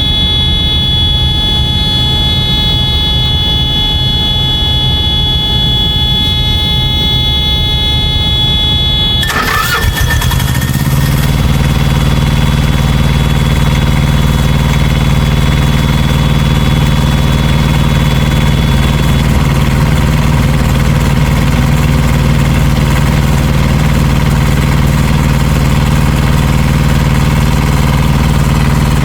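Thermo King truck APU starting up after a drive belt replacement: a steady high-pitched electric fuel pump whine for the first nine seconds or so, then the APU's diesel engine cranks and catches about ten seconds in and settles into steady running.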